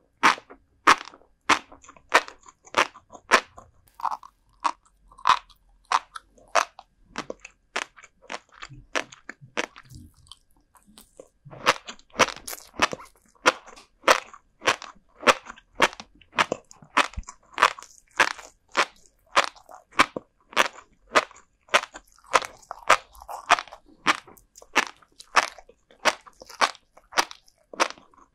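Close-up chewing of salted herring roe and black flying fish roe: a steady run of crisp, crackly crunches, about two to three a second, with a short pause partway through.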